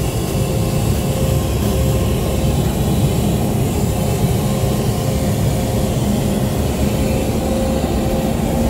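Steady cabin drone of a small airliner heard inside its lavatory: a low engine and airflow rumble with a constant hum.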